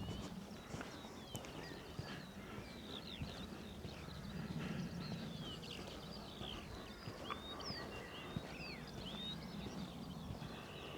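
Several small birds singing together, a dense run of short whistled chirps and trills, over a steady low rumble.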